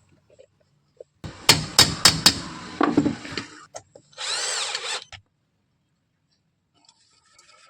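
Hand tools at work: a quick run of sharp knocks and taps, then a power tool whirring for about a second before stopping.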